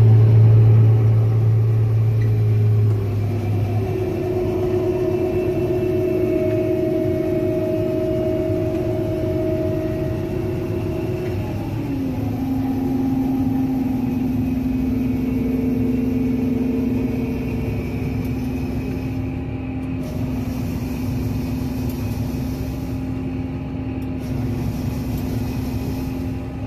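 Combine harvester running while harvesting corn, heard from inside the cab: a steady drone of engine and threshing machinery. Its pitch steps down twice, about four seconds in and again about twelve seconds in.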